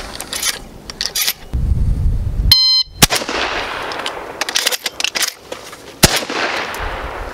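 A shot-timer start beep, then a 12-gauge shotgun fires once. A quick run of clicks follows as four shells are thumbed into the magazine tube, and a second shot comes about three seconds after the first.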